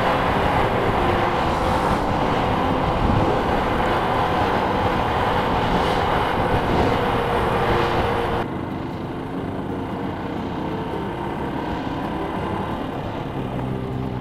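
Motorcycle riding at road speed: wind rush on the bike-mounted camera over the engine's running note. About eight seconds in it cuts abruptly to quieter, slower riding, with a steady low engine hum more to the fore.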